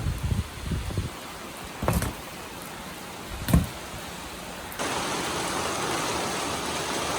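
Rain falling, with a few dull thumps in the first half; a little under five seconds in, the rain noise steps up and becomes louder and steady.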